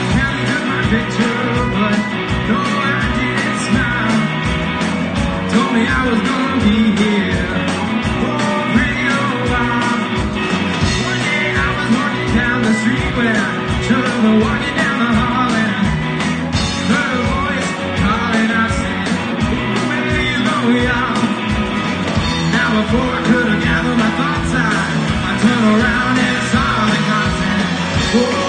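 Live rock band playing blues-rock: two electric guitars, electric bass and a drum kit with a steady beat, with a man singing lead.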